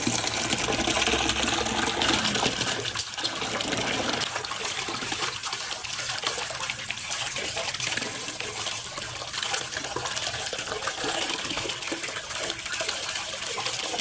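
Tap water pouring in a steady stream from a pipe into a metal basin, splashing over a baby monkey held under it.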